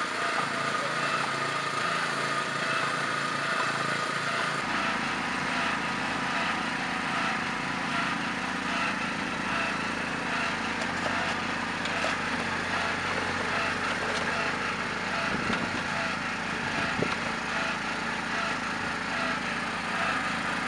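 Small engine-driven portable water pumps running steadily, drawing water out of the trench through their hoses, with a few faint knocks from digging.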